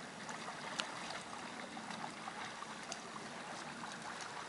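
Lake water lapping and trickling steadily, with a few faint drips and plinks.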